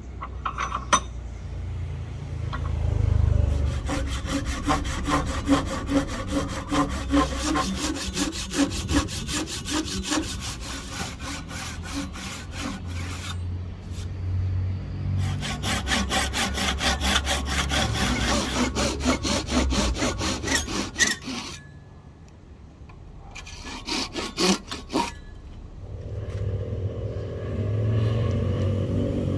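Hand saw cutting through wood in quick, even back-and-forth strokes, in three runs with short pauses between them.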